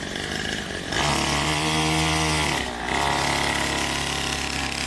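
49cc two-stroke pocket dirt bike engine running under throttle. It gets louder about a second in, eases off briefly near the middle, then picks up again and holds steady.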